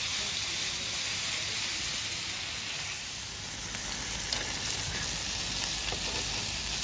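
Sausages and chunks of meat sizzling steadily on a flat barbecue hotplate, with a few light clicks of metal tongs against the plate.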